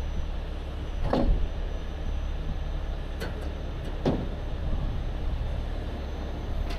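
Heavy rotator tow truck's diesel engine running steadily in a low rumble, with a few sharp knocks about a second, three and four seconds in.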